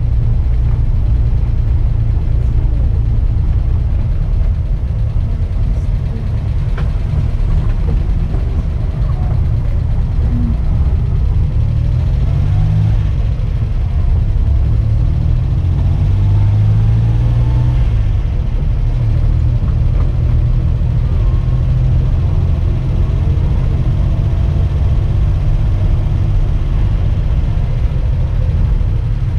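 1984 Daihatsu Hijet 1000's engine running while driving, heard from inside the cab. The engine note rises and falls as it speeds up and eases off, strongest through the middle.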